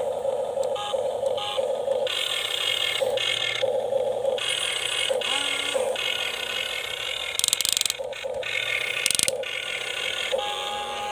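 Small electric motors and gearboxes of a radio-controlled model excavator whirring in short stop-start spurts, the pitch shifting as different functions run. Two short bursts of rapid clicking come about two-thirds of the way through.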